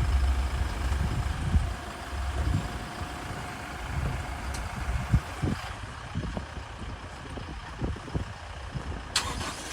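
Toyota Hilux Revo pickup's engine idling, a low uneven rumble, with one sharp click near the end.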